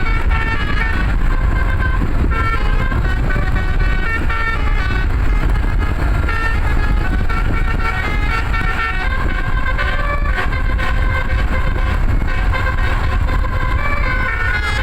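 Bus "telolet" musical air horn (Basuri type, roof-mounted trumpets) playing a tune of short notes that keep changing pitch, without pause, over a loud low rumble.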